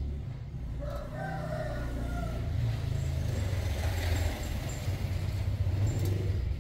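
A rooster crows about a second in, then a motor vehicle passes by. Its rumble builds to a peak midway and falls away near the end.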